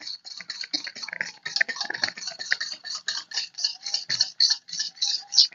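Wire whisk beating a thick yogurt marinade in a metal pot: quick, regular clicks of the wires striking the pot's sides, about six a second.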